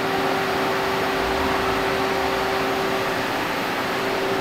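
Steady mechanical hum with one constant tone from the running Kern CNC machining centre and its automatic pallet changer, with a low rumble about a second in as the changer's gripper arm travels in to grab the pallet.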